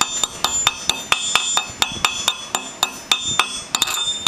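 Chipping hammer striking the slag on a fresh 7018 weld bead on railroad-iron steel, about three to four ringing metallic taps a second, knocking the flux off.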